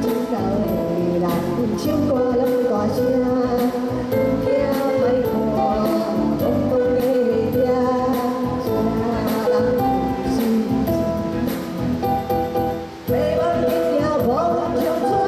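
A woman singing a nakashi-style song into a microphone over electronic keyboard accompaniment with a steady beat, played through a PA system; the music dips briefly near the end, then carries on.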